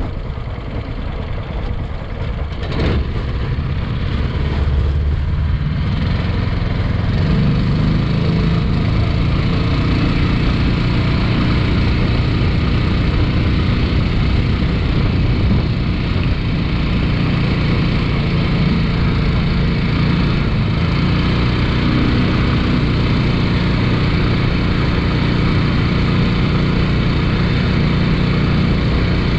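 13 hp Predator single-cylinder engine on a longtail mud motor throttled up from slow speed to full speed over the first several seconds, then running steadily at high revs while pushing a heavily loaded jon boat. A single knock sounds about three seconds in.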